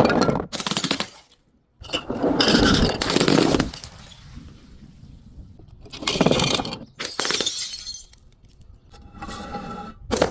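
Glass being crushed and shattering in about five separate crunching bursts, with brief ringing glass tones in the last one.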